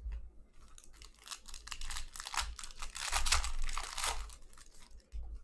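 Foil wrapper of a Panini Prizm hobby card pack crinkling as it is torn open by hand. It is loudest a little after three seconds in.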